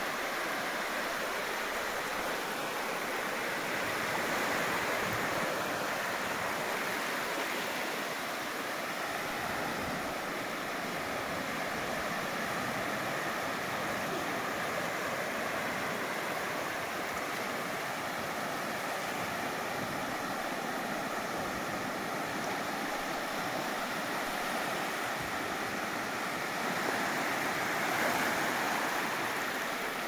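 Sea waves washing onto a sandy beach: a steady surf wash that swells slightly about four seconds in and again near the end.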